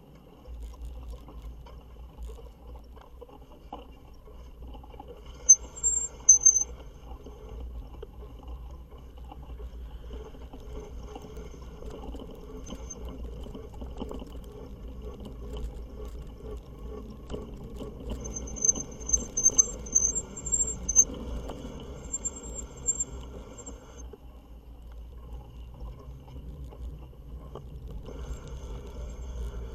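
Fat-tire e-bike being ridden through snow: a steady low rumble with a rough, noisy layer above it. A thin high-pitched tone comes and goes, briefly about five seconds in and again for several seconds past the middle.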